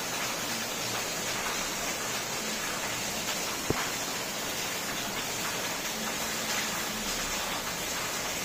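Very heavy rain falling steadily, an even hiss with no let-up. A single short click sounds about three and a half seconds in.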